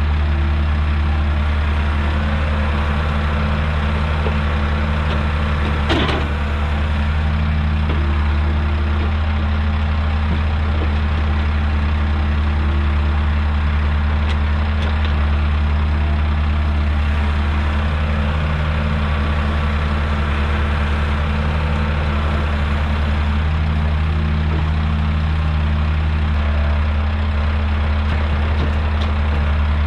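Diesel engine of a compact excavator running steadily with a low hum, the overtones shifting a little as the hydraulics take load while digging. A single sharp knock comes about six seconds in.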